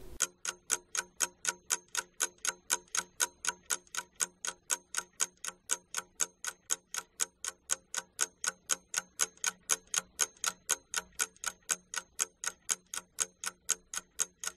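Ticking-clock sound effect, an even tick about four times a second, marking the time given to answer a question.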